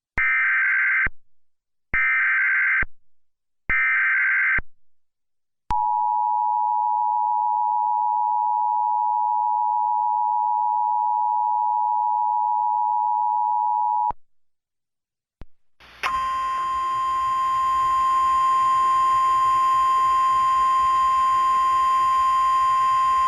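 Emergency Alert System header: three short bursts of SAME digital data screech, then the two-tone EAS attention signal held for about eight seconds and cut off abruptly. A couple of seconds later a steady tone of about 1 kHz starts over a hissy background and carries on.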